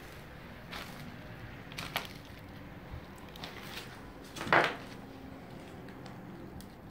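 Footsteps and the shifting of weight on old wooden floorboards, with scattered creaks, knocks and crunches of debris underfoot; one louder one about four and a half seconds in.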